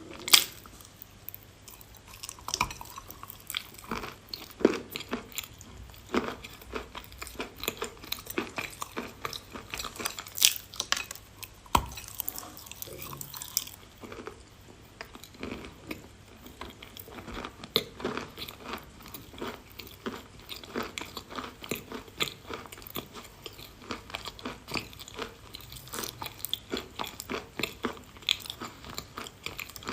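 A person biting and chewing pieces of edible chalk rolled in chalk crumb, with crisp, irregular crunching. The loudest crunch is a sharp bite just after the start.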